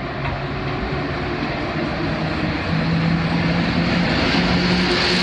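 Electric locomotive hauling a TLK passenger train, pulling away and passing close by. Its motor hum rises in pitch in steps as it speeds up, and the sound grows louder as it draws near.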